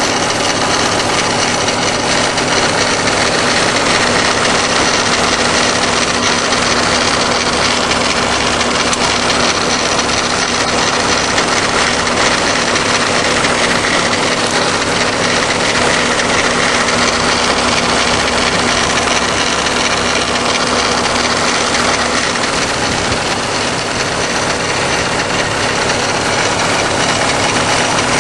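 Subaru WRX flat-four boxer engine running steadily, with a grinding noise from around the timing belt cover on the passenger side, whose cause the owner does not know.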